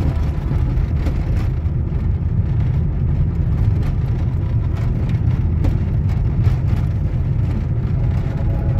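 Car driving along a rough country road, heard from inside the cabin: a steady low rumble of engine and tyre noise.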